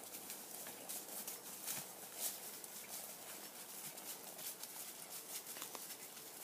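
A two-year-old filly walking on a dirt trail covered with dry leaves: faint, irregular crunching and crackling of hooves in the leaf litter.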